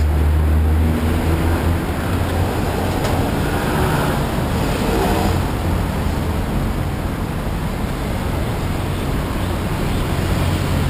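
Steady rumble of street traffic, with a low engine drone that is strongest in the first couple of seconds and then eases.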